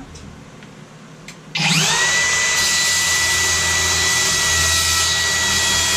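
Kobalt 24V brushless 7¼-inch compact sliding miter saw switched on about a second and a half in. Its motor and blade spin up with a quickly rising whine, then run steadily at full speed with a high whine.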